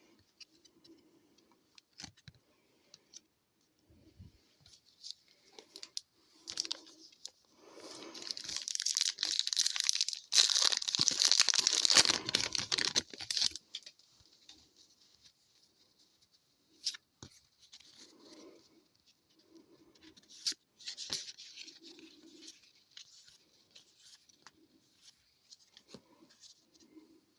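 A hockey card pack wrapper torn open and crinkled for several seconds around the middle, between fainter rustles and clicks of cards being handled.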